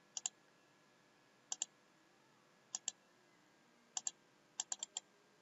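Computer mouse button clicks, each a quick press-and-release pair, coming about every second and a quarter, then four fast clicks near the end, as points are placed along a line in mapping software.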